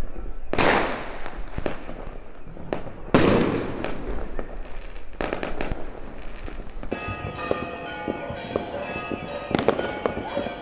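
Fireworks going off: two big booms with long rumbling tails, about half a second and about three seconds in, amid scattered sharp pops and crackles. From about seven seconds in, church bells ring in overlapping tones while single pops continue.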